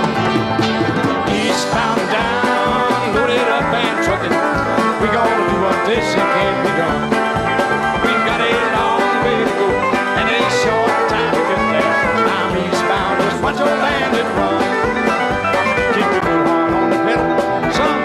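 Background country music with plucked string instruments, playing throughout.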